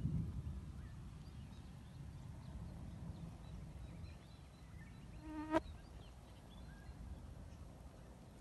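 Outdoor ambience of a low wind rumble on the microphone with faint, scattered bird chirps. About five and a half seconds in, an insect buzzes briefly and loudly close to the microphone.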